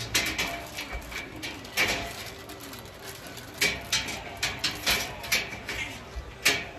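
Irregular sharp metallic clicks and knocks as parts of a black slotted-angle steel shelving rack are handled and fitted together.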